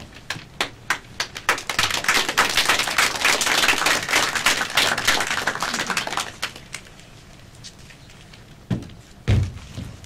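Audience clapping after a scene on stage: a burst of applause that builds, stays full for a few seconds, and dies away about six seconds in. A few heavy thuds follow near the end.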